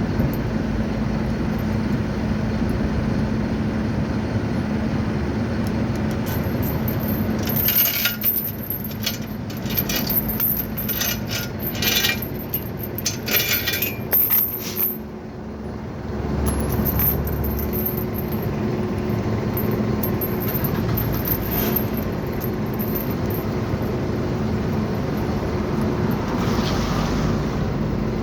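Flatbed tow truck's engine running steadily, with a stretch of metallic clinking and rattling in the middle as tie-down chains are unhooked and handled.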